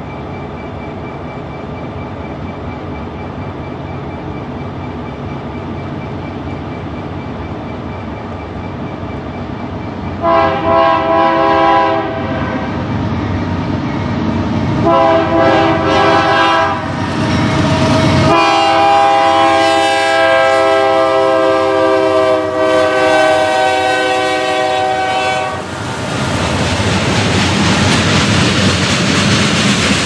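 Freight train approaching, its running noise growing steadily louder. Its locomotive air horn then sounds three blasts, each a chord of several tones: two short ones about ten and fifteen seconds in, then a long blast of about seven seconds. Near the end the train passes close by with loud rolling noise and wheel clatter.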